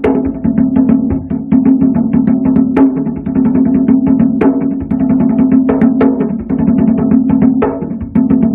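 Djembe played with bare hands: a fast, continuous rhythm of hand strokes, with sharper slaps standing out now and then over the drum's low ring.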